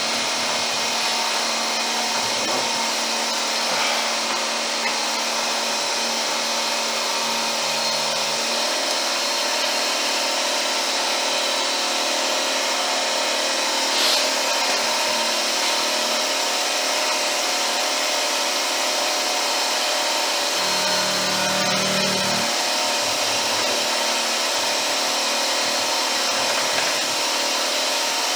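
Milling machine spindle running steadily while the cutter takes a light cut in the lower lug of a pistol barrel, with a brief tick about halfway through.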